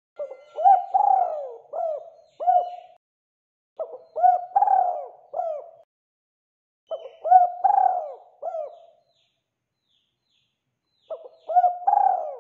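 Spotted dove (tekukur) cooing in four phrases a few seconds apart, each a run of several rounded coos lasting about two to three seconds. The last phrase begins near the end.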